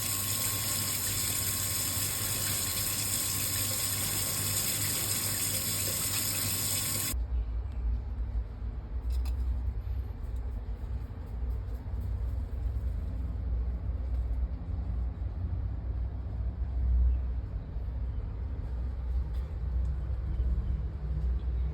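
Kitchen sink tap, fed from a tank water pump, running at a strong full flow with a steady gushing hiss. The water cuts off suddenly about seven seconds in, leaving only a low rumble.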